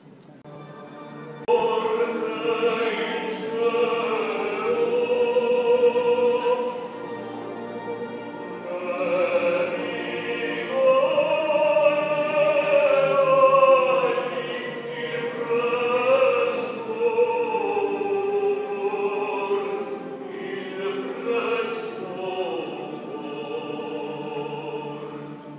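Singing of a sacred Passion song, beginning about a second and a half in, with long held notes.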